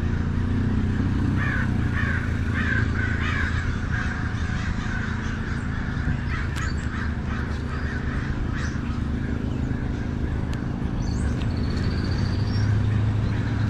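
Crows cawing repeatedly, mostly in the first few seconds, over a steady low engine hum, the Suzuki GSX-R750's inline-four idling.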